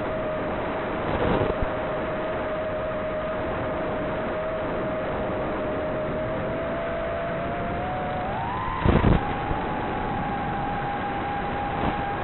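A 5-inch FPV quadcopter's brushless motors and propellers are whining at a steady pitch over a rush of airflow noise. The pitch climbs about eight seconds in as the throttle goes up, then holds a little higher. There are short loud bursts of rushing noise about a second in and about nine seconds in.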